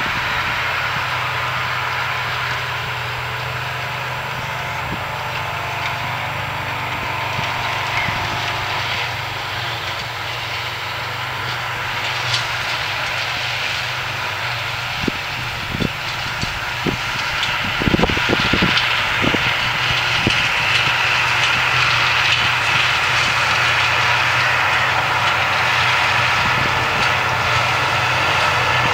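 New Holland self-propelled forage harvester and the tractor running beside it with a silage trailer, heard as a steady engine drone. It grows louder over the second half as the machines draw nearer, with a few brief thumps around the middle.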